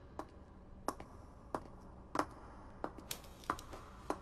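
High-heeled footsteps clicking on a hard floor at a walking pace, about one step every two-thirds of a second, with a few extra steps close together near the end.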